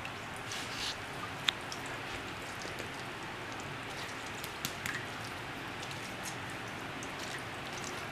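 Wire potato masher pressing cooked Pindo palm fruit in a cheesecloth-lined pot to squeeze out the juice: quiet wet squishing and pattering with scattered small ticks, and one sharp click about one and a half seconds in.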